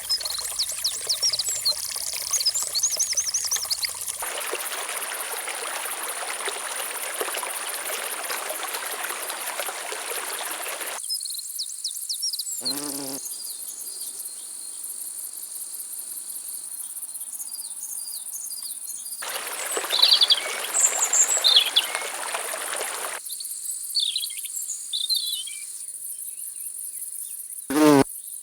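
Insects buzzing with a steady high-pitched drone, with short bird chirps scattered through it. A rushing hiss comes in twice for several seconds, and two brief low calls are heard, one near the middle and one near the end.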